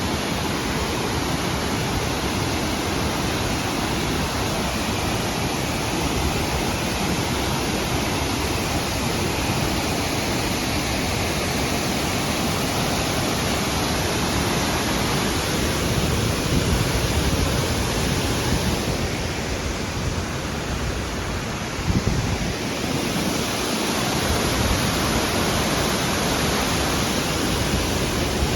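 Waterfall rushing, a loud steady wash of falling water, with a brief knock about three-quarters of the way through.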